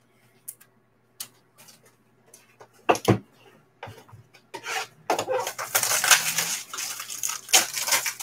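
A couple of loud knocks on the table about three seconds in, then, from about two seconds later, steady crinkling and tearing of the plastic shrink-wrap being peeled off a sealed pack of graded trading cards.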